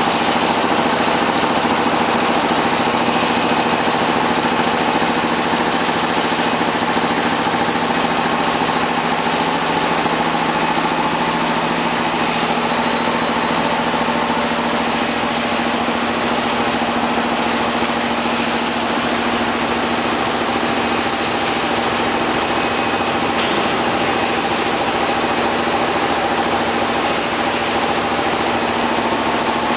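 MIC 18-18-6 PET bottle washing, filling and capping monoblock machine running: a steady, loud mechanical hum over an even hiss, with no break.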